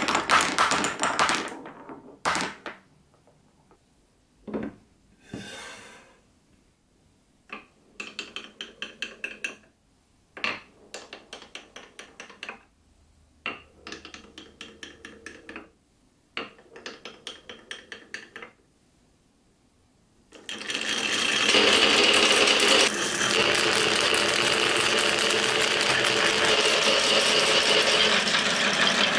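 Glass marbles rolling and clacking through a wooden marble run. At first there are single clicks and short runs of quick clicking with brief pauses between. About two-thirds in, a dense, continuous rattle begins as many marbles roll down wavy wooden grooves together.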